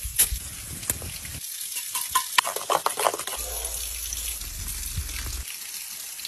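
A metal spoon scraping and clinking against a small hammered-copper Turkish coffee pot (cezve), with a cluster of clinks about two to three seconds in, then a steady sizzling hiss as the pot sits on hot embers.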